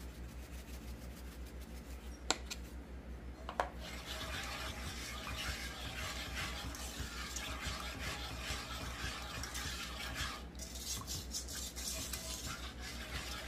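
A spoon stirring a thick cream sauce in a stainless steel skillet, scraping steadily around the pan, with a short break about ten and a half seconds in. Two sharp clicks of a utensil against the pan come before the stirring settles in, about two and three and a half seconds in.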